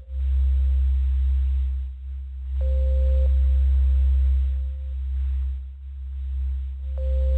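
Ambient background music: a deep, steady drone with a single pure mid-pitched tone that comes in twice, each time fading away over about two seconds.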